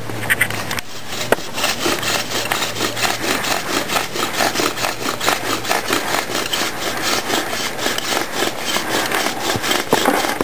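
Bow drill at work: a wooden spindle grinding back and forth in a binunga hearth board in a fast, even rhythm of rasping strokes. The board is already hot and smoking, but no ember has formed yet.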